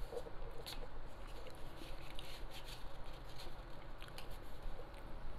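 Light, irregular clicks and taps of plastic takeout containers and lids being handled, about a dozen scattered through.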